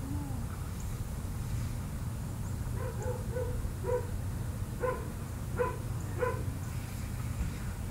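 A dog barking: about seven short barks from about three seconds in to six and a half seconds in, over a steady low rumble.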